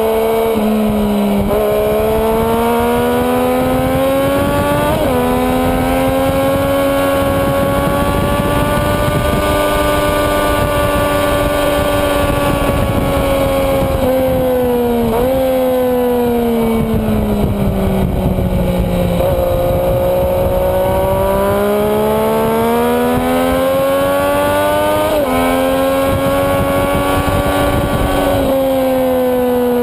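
Sport motorcycle engine at high revs, heard from on board at track pace: the engine note climbs for several seconds, holds, then falls about halfway through and climbs again, with sudden small jumps in pitch at the gear changes. A steady rush of wind noise lies under it.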